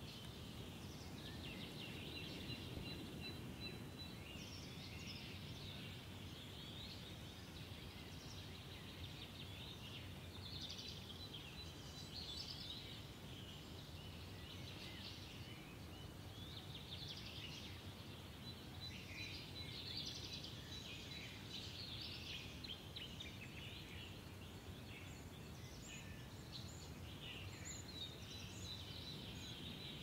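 Morning nature ambience: birds chirping and twittering continuously over a low, steady background rumble.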